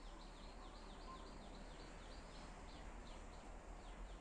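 A small bird calling faintly: an even string of short high chirps, each dropping in pitch, about four a second, fading out near the end.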